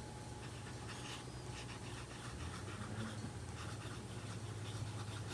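Medium steel nib of a TWSBI Eco fountain pen scratching softly across notebook paper in short, irregular strokes as a few words are written.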